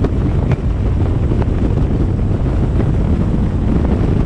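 Turbocharged GMC Sierra pickup driving at speed: a steady engine and road rumble, with wind buffeting the microphone.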